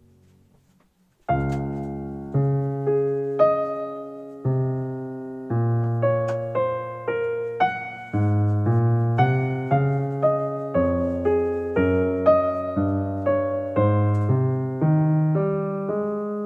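Background piano music: a slow, gentle melody of single notes and chords, each struck and left to fade, beginning about a second in after a brief hush.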